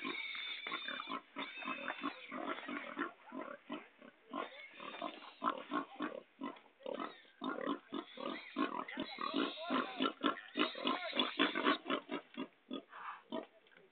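Pigs grunting, a long run of short calls packed close together, some of them higher-pitched.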